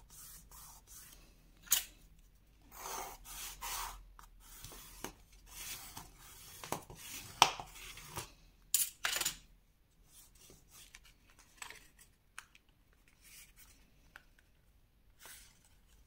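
Kraft cardstock being folded and pressed flat by hand, with a wooden stick rubbed along the glued fold: scattered papery rubs and swishes and a few sharp snaps, the loudest near the middle, then quieter handling in the second half.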